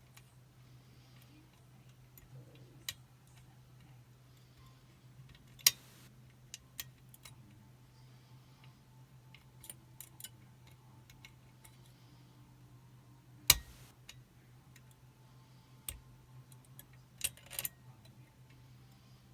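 Scattered small metallic clicks and ticks of a picking wire and tensioning tool working the levers inside a Chubb Detector five-lever lock. The sharpest clicks come about six seconds in and again about thirteen and a half seconds in, with a small cluster near the end, over a low steady hum.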